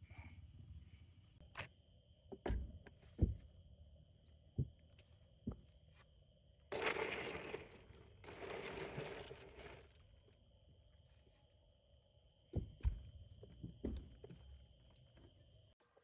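Night insects chirping steadily, with scattered knocks and clicks, the loudest about three seconds in. About seven seconds in come two stretches of rustling and rattling, lasting about three seconds in all, as a hand rummages in a hard-sided cooler.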